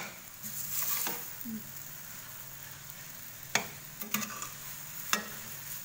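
Rice vermicelli and vegetables sizzling in a stainless steel wok while a long metal spatula stirs them, clinking sharply against the pan about five times.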